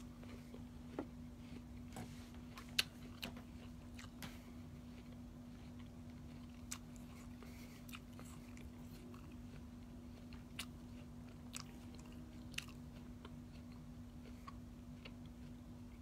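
Faint chewing, with scattered soft mouth clicks over a steady low hum.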